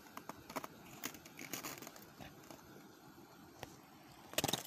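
Close rustling and crinkling handling sounds, scattered small clicks and crackles as hands work a small fish off the hook, with a louder burst of crackling near the end.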